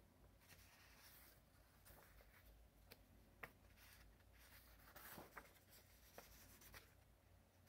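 Faint rustling and soft ticks of sketchbook paper pages being turned and pressed flat by hand, a few separate page handlings.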